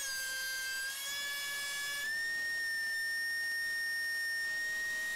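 DeWalt two-speed thickness planer running with a steady high-pitched whine, its pitch sagging slightly early on and stepping back up about two seconds in as boards feed through under a light half-crank cut.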